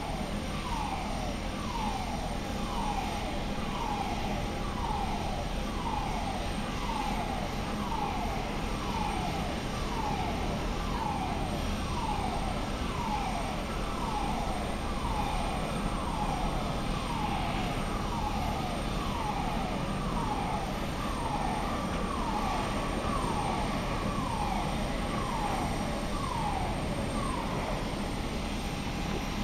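A warning tone sweeping downward, repeated about once a second and stopping shortly before the end, over the steady noise of an airport apron with jet aircraft.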